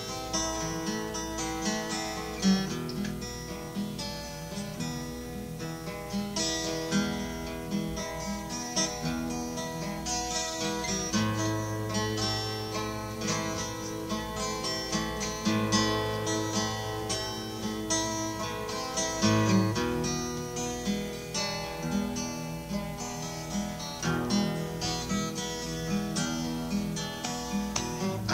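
Acoustic guitar strummed in a steady rhythm, an instrumental stretch of a song.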